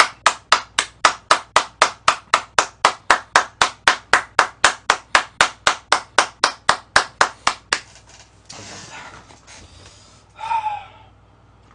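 One person clapping his hands at a steady pace, about four claps a second, for nearly eight seconds. After the claps stop, there is a short voice sound near the end.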